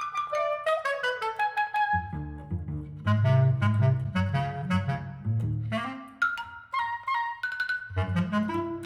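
Instrumental music played back over Elfton Vegas II loudspeakers and picked up by room microphones: a melody of quick notes with sharp attacks over a low bass line.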